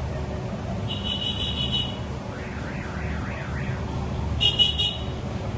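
Two high electronic beeps, each about a second long and about three seconds apart, over a steady low rumble of background noise.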